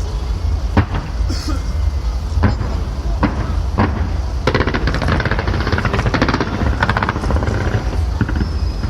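Fireworks going off: a few separate bangs, then a dense, rapid crackling of many small cracks from about halfway through.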